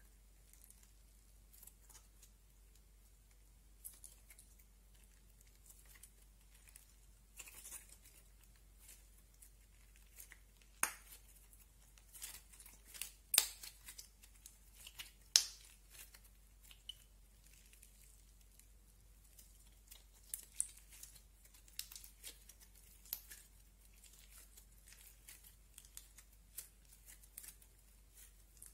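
Clay slime being kneaded and squeezed by hand: faint, irregular sticky crackles and clicks, with a few sharper pops around the middle.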